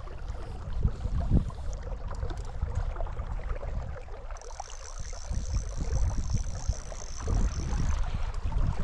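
Wind buffeting the phone's microphone in gusts over the rush of river water. A thin, steady high tone sounds from about four to eight seconds in.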